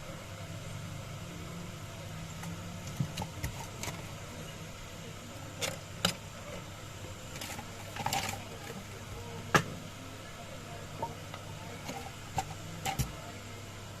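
Steady low hum with about a dozen small sharp clicks and taps scattered through it, as of hand tools handled on a repair bench; the loudest tap comes about two-thirds of the way through.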